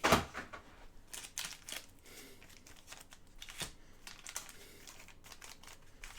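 Upper Deck SkyBox Metal Universe hockey card packs and cards being handled: crinkling wrapper and card stock, with a sharp crackle right at the start, then scattered short crinkles and scrapes.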